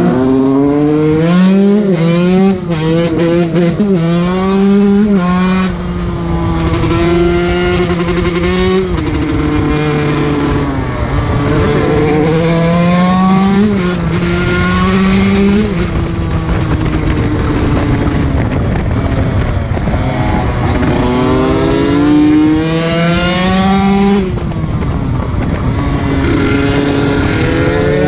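A 125 cc two-stroke off-road motorcycle engine being ridden hard. It revs up again and again, the pitch climbing and then dropping back every few seconds as the throttle is closed or a gear is changed.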